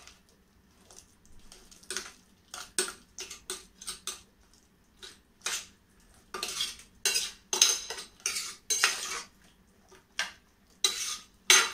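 Metal ladle scraping and clinking against the sides and bottom of an aluminium pressure cooker as the potatoes in a pea curry are mashed and stirred. Short, irregular strokes, with longer, louder scrapes in the second half.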